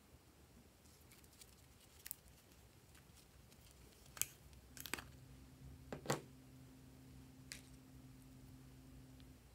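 Plastic character-shaped lip balm container being twisted and pulled open by hand: a few sharp clicks and snaps of the plastic, the loudest two about four and six seconds in.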